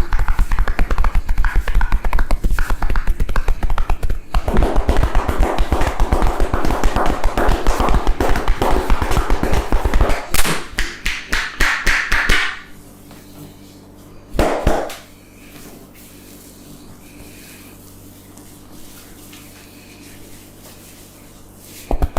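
A barber's hands tapping and slapping rapidly on a head during a head massage: a dense run of quick strikes that stops about twelve seconds in. After a short burst a couple of seconds later there is low, steady background noise, and the tapping starts again at the very end.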